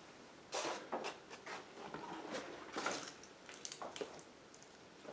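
Irregular crunching and rustling of footsteps through dry leaves and brush, starting about half a second in and thinning out near the end.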